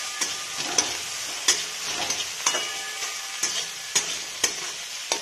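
Chopped green chillies and garlic sizzling in a wok over high heat while a metal spatula stirs them, scraping and knocking against the pan at irregular intervals.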